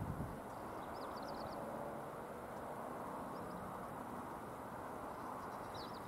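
Steady low background rumble with a small bird's rapid high chirps, once about a second in and again near the end.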